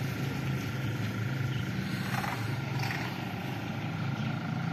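A vehicle engine running steadily, a low even hum with road or wind noise over it.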